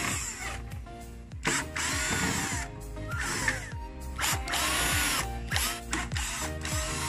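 Cordless drill with a Phillips screwdriver extension, run in several short bursts to back out plastic body-panel screws; each burst's motor whine rises and falls as the trigger is pulled and released.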